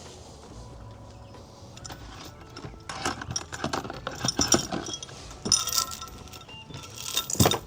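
Rapid mechanical clicking and rattling like a ratchet, in bursts from about three seconds in, loudest just before the end.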